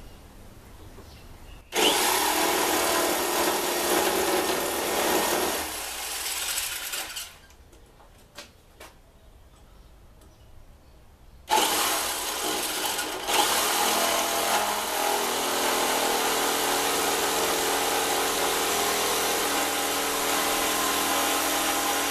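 Electric jigsaw (Mondial) sawing through a hardwood board. It starts about two seconds in and runs for about five seconds. After a pause with a couple of light knocks, it starts again about halfway through and runs on steadily.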